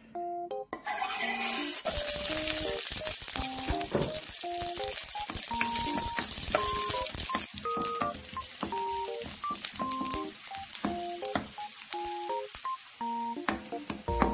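Whole garlic cloves sizzling in hot cooking oil in a stainless steel pan as a wooden spatula stirs them. The sizzle starts about a second in and stays loud and steady, over background music.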